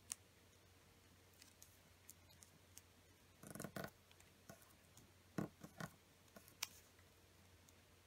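Square origami paper being folded and creased flat by hand: scattered sharp crinkles and taps, with a short burst of paper rustling about three and a half seconds in.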